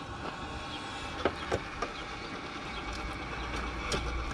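Refuelling at a service station: a steady low background with several light clicks and knocks, and a low rumble that grows a little near the end.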